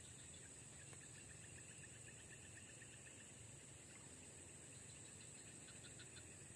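Faint swamp insects: a steady high-pitched drone with short runs of rapid, evenly spaced chirps, one run about two seconds in and another near the end.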